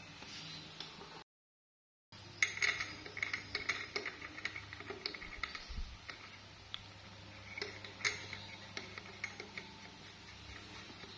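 Metal clicks and clinks of a flywheel puller being threaded into the magneto rotor of a Kawasaki Ninja RR two-stroke engine. The clinks come thick just after a short break of dead silence about two seconds in, then more scattered.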